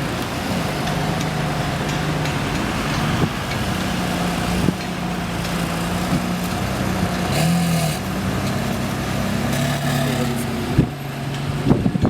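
Ferrari Enzo's V12 engine idling steadily, with one brief small rise and fall in pitch about halfway through.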